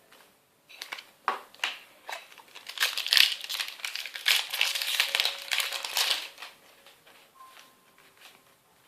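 Foil booster pack wrapper crinkling as it is torn open and handled, in a run of bursts lasting about five seconds and starting about a second in.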